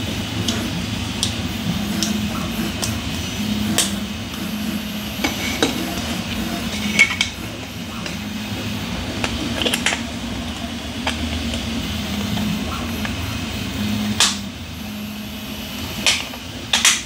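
Hard 3D-printed plastic parts clicking and knocking together as they are handled and fitted by hand, with a few sharper clicks near the middle and near the end, over a steady low hum.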